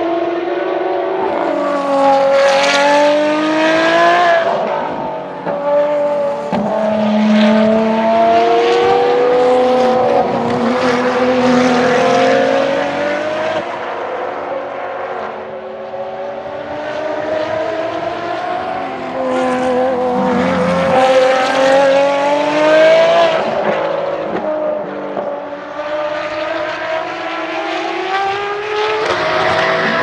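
Ferrari XX-programme track cars' V12 engines at high revs, the pitch climbing through each gear and dropping at the shifts, with several cars overlapping as they come past one after another.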